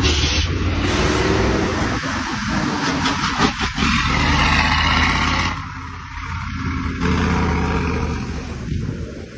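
Temsa bus engine running: a steady low drone under a broad rushing noise that eases about five and a half seconds in and swells again a second later.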